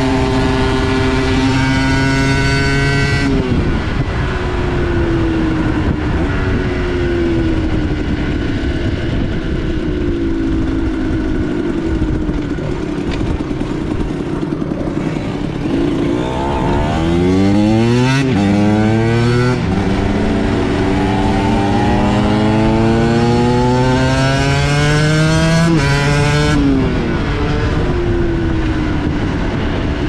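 A 2003 Aprilia MX125's single-cylinder two-stroke engine under riding load, its pitch climbing and dropping back again and again as the rider accelerates through the gears and shifts up. The revs fall away as the throttle is closed about three seconds in and again near the end, over steady wind noise.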